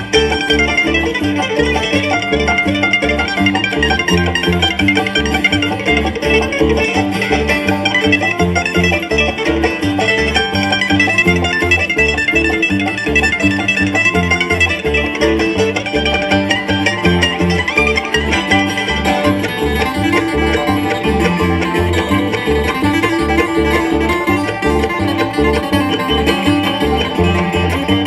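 Live bluegrass band playing an instrumental passage on plucked strings, banjo and guitar to the fore, over a steady, even beat.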